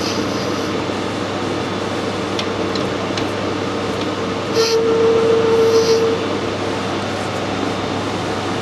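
Metal lathe running while a tool chamfers the edges of a brass part, a steady machine hum throughout. About four and a half seconds in, a louder steady tone rises over it for about a second and a half as the tool cuts.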